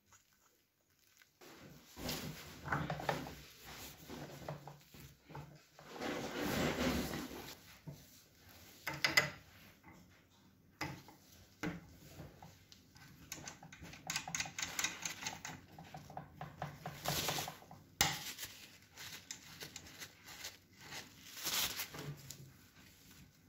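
Hands fitting a blowtorch's green handle over its brass fitting: irregular rubbing, scraping and light clinks of metal parts, with a couple of sharper clicks.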